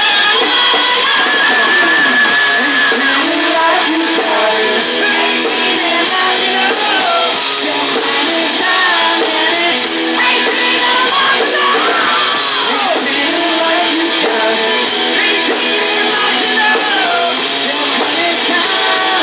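Live hard rock band: distorted electric guitar and drums with a male singer's high, belted vocal, recorded from the audience in a club.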